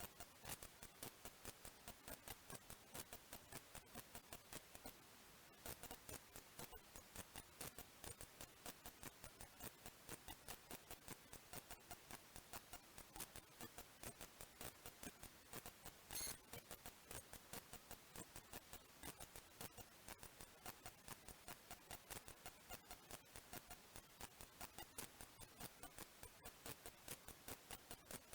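Near silence with faint, evenly spaced clicking, about three clicks a second, and one slightly louder click about sixteen seconds in.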